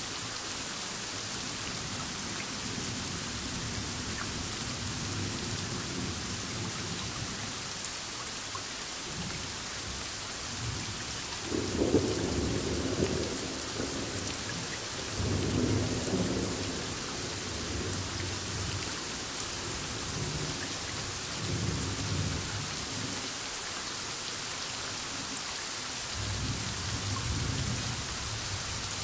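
Heavy rain falling steadily, with thunder rumbling through it. The loudest roll comes about twelve seconds in, followed by a second roll about four seconds later and softer rumbles near the end.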